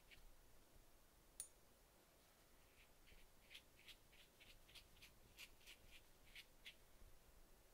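Faint, quick scratchy strokes of a watercolor brush, about three a second for a few seconds, with one sharp tick about a second and a half in.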